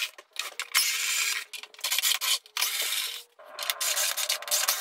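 Cordless drill-driver backing screws out of a CRT television's plastic back cover, running in several short spurts with brief pauses between.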